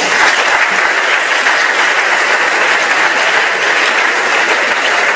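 Audience applauding: dense, steady clapping from a large crowd that cuts off suddenly at the end.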